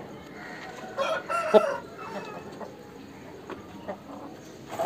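Aseel rooster giving one short call about a second in, lasting under a second. A sharp click comes at the start and a few more near the end.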